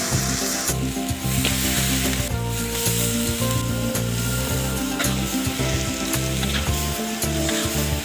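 Spice paste and meat sizzling in a hot metal wok over a wood fire, with pieces of meat dropped in and stirred with a metal spatula that scrapes and ticks against the pan. Background music plays throughout.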